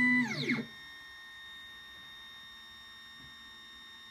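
Ultimaker 2+ 3D printer's build plate driven up on its stepper motor: a steady whine that slides down in pitch and stops within the first second. Then the printer's fans give a faint steady high whine.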